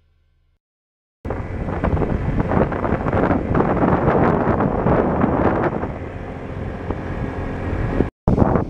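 Wind buffeting the microphone of a moving vehicle, mixed with road rumble: a loud, steady, low rush that starts about a second in and cuts off abruptly near the end after a brief dropout.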